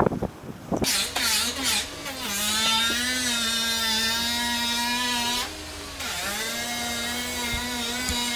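Handheld power tool whining in two runs of about three seconds each, a brief pause between them about five and a half seconds in; the pitch wavers slightly as the tool bears on the work.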